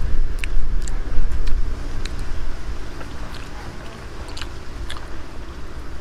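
A person chewing and biting soft grilled durian flesh, with irregular smacking mouth clicks, busiest in the first couple of seconds.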